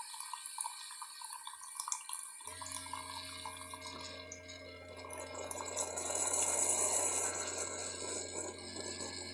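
Keurig Mini single-serve coffee maker brewing, with coffee streaming and dripping into the cup. About two and a half seconds in, a steady low hum starts and keeps going under the pouring.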